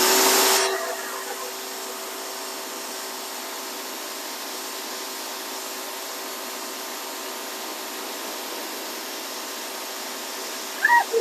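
Pressure washer spraying: a loud blast in the first second, then a steady hiss over the even hum of its pump.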